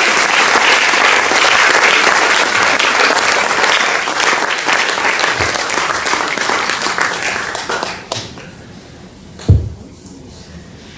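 Audience applauding, dying away about eight seconds in; a single low thump follows about a second and a half later.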